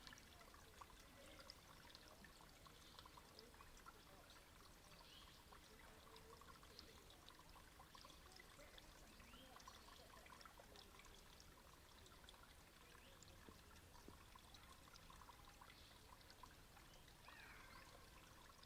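Near silence, with the faint trickle of running water from a creek.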